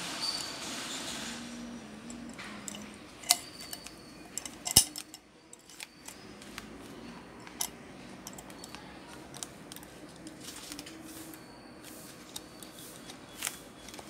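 Clicks and knocks of a circuit board being handled and set into a spring-loaded metal PCB holder, with small ticks throughout. Two sharper knocks come about three and five seconds in, the second the loudest.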